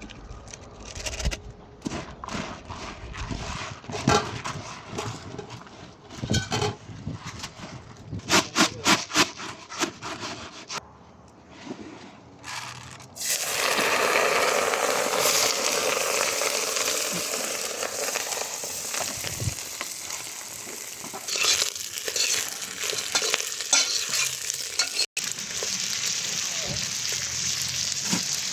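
Goat meat frying: scattered knocks and scrapes at first, then a loud, steady sizzle from about halfway through, with stirring.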